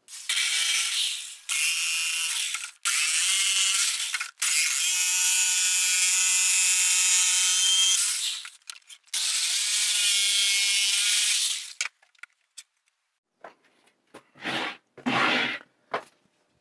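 Jigsaw cutting small hinge notches into a thin wooden trim strip, the motor running in five bursts of one to four seconds with a steady whine under the rasp of the blade. It stops about twelve seconds in, followed by a few short knocks.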